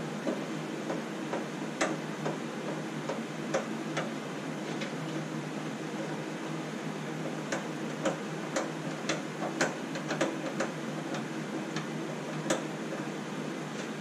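Irregular sharp clicks and taps of a Phillips screwdriver and small screws against the sheet-metal panel of an ultrasonic cleaner, around its power-switch module. The clicks come a few at a time at first and grow more frequent over the second half, over a steady background noise.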